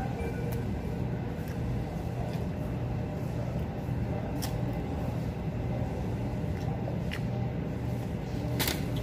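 Steady low hum of room noise, like ventilation, with three sharp clicks in the second half, the loudest near the end.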